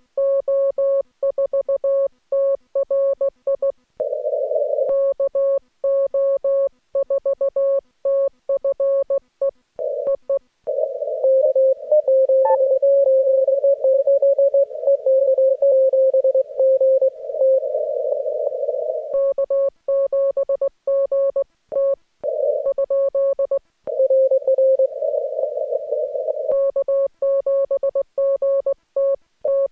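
Morse code (CW) tone from an amateur radio transceiver, keyed on and off in dits and dahs at one steady mid pitch. Some stretches are clean keyed tone; others have a hiss of band noise around the tone.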